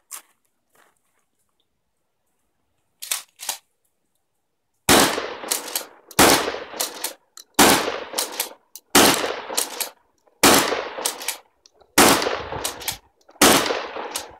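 Remington 870 12-gauge pump-action shotgun fired seven times in steady succession, about a shot every second and a half, with the clack of the pump being worked between shots. Every round goes off, the sign that the modified firing pin and firing-pin spring now work.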